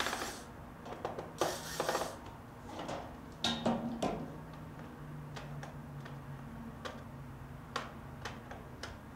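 Corded electric screwdriver running in two short bursts as it backs out laptop screws. Then scattered clicks and taps as the tool is set down on a glass table and the plastic bay cover is handled.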